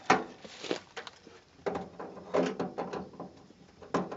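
A few sharp knocks and clicks of handling as a power lead is plugged into the portable fridge's power socket.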